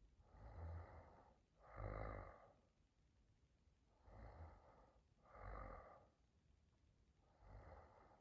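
A woman snoring softly in her sleep: faint, rasping breaths in and out, five of them in pairs with short pauses between.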